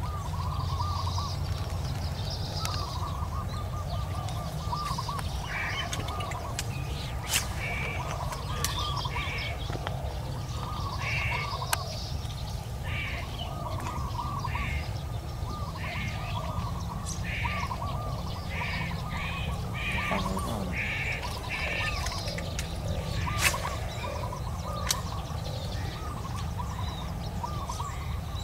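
Birds calling, with quick repeated chirps throughout, over a steady low rumble. A few sharp clicks stand out, around 7 s, 12 s and 23 s in.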